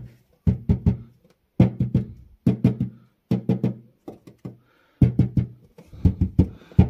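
Knuckles knocking in quick clusters of about three on the bare sheet-metal floor pan of a Dacia Spring. Each knock rings briefly with a hollow metallic tone, the sound of an undamped panel with no vibration-damping layer yet applied.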